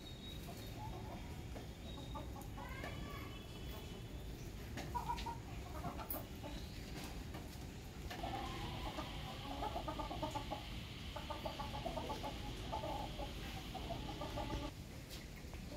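Hens clucking in short calls, busier and more continuous in the second half. A steady hiss joins them for several seconds in that stretch.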